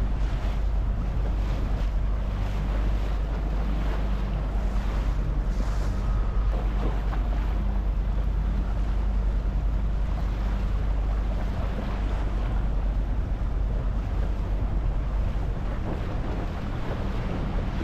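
A small boat's engine running at a steady drone, with water washing and splashing against the hull and wind buffeting the microphone.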